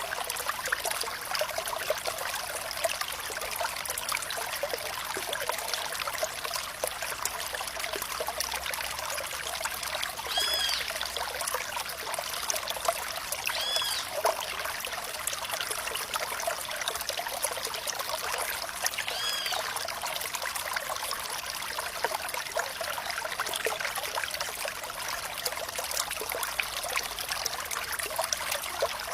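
Small stream of water trickling and flowing steadily, a busy splashing with many little drips. Three short high chirps stand out a few seconds apart in the middle.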